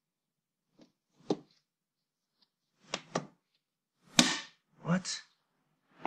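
A few sharp plastic clicks and snaps from working the cover of a Chamberlain Whisper Drive garage door opener by hand: a single one about a second in and two close together near the middle.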